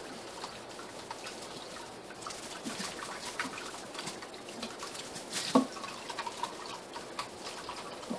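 Water pattering and light clatter as a container is rinsed under the spigot of a plastic water jug, with a louder knock about five and a half seconds in.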